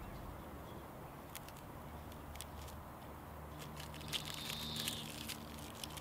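Plastic candy wrapper crinkling and crackling as it is worked open by hand, in scattered sharp crackles that grow thickest about four to five seconds in.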